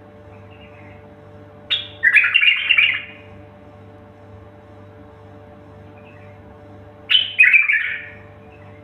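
A songbird singing two short phrases about five seconds apart. Each opens with a sharp high note and runs into a quick jumble of notes, over a steady low hum.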